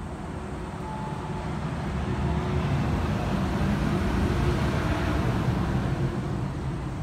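A road vehicle passing: a noise that swells to a peak about four to five seconds in and then fades.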